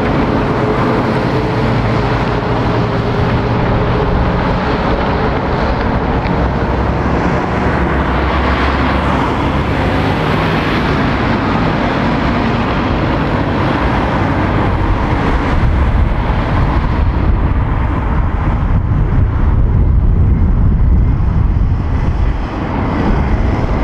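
Diesel lorries and vans driving past, with engines running and tyres rolling on tarmac. A lorry's engine tone fades over the first few seconds, and a deeper rumble builds from about sixteen seconds in as another lorry draws near.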